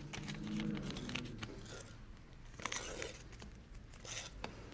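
Faint kitchen handling noises: scattered light clicks, clinks and scrapes of utensils, with a brief rustling burst a little before the three-second mark.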